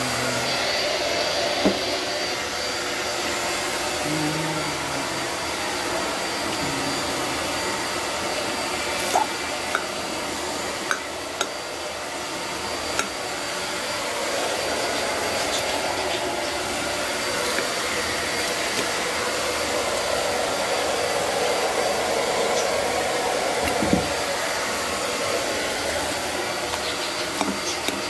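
Steady whooshing noise, like air blowing, with a few light clicks of a fork against the plate.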